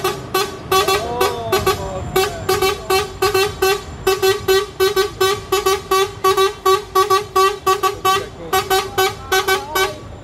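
Truck horn sounded in rapid short toots at one steady pitch, about three a second, stopping just before the end. A second tone glides briefly up and down over it about a second in.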